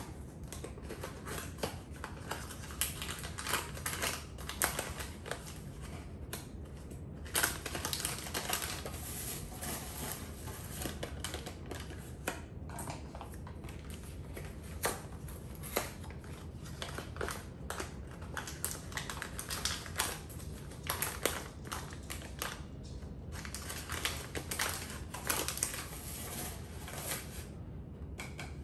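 Dry corn muffin mix being shaken out of cardboard boxes into a glass mixing bowl: rustling of the box and falling mix in spells, with many small taps and clicks.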